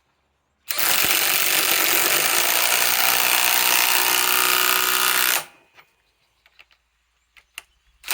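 RIDGID subcompact right-angle impact wrench hammering a 4-inch lag screw into wood, with a steady motor whine under the rapid impacts, for about five seconds before it stops. A few small clicks follow, and the wrench starts on the next lag right at the end.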